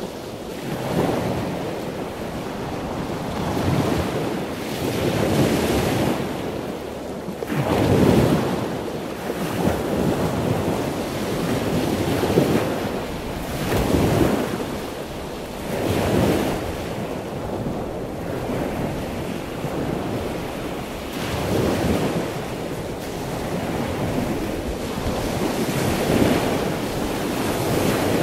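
Sea waves breaking and washing up a sandy beach. The surf rises and falls in swells every few seconds.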